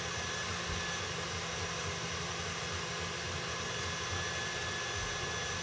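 Electric tilt-head stand mixer running steadily, beating egg yolks and oil into an emulsion for a mayonnaise-like Caesar dressing: an even motor hum with a hiss of the beater churning in the steel bowl.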